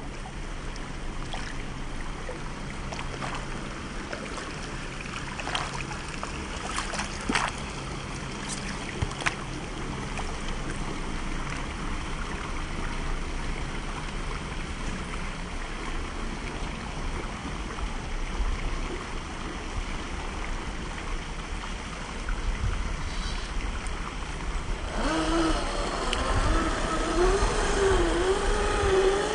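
Creek water running, with a few sharp knocks. Near the end comes the whine of a 1/10-scale RC crawler's 550 electric motor, its pitch rising and falling with the throttle.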